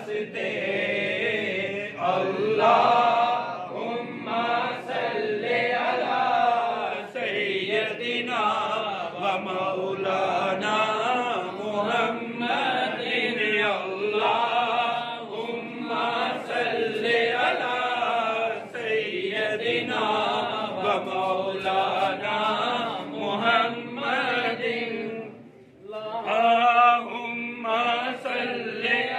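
A crowd of men chanting devotional words together, many voices overlapping, with a short break about twenty-five seconds in.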